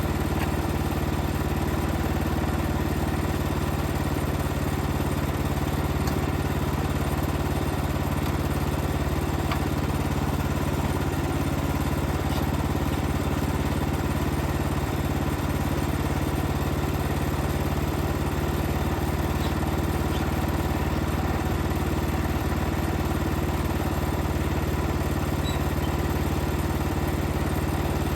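Wood-Mizer LX55 portable band sawmill's 14 hp engine running steadily, at an even, unchanging level.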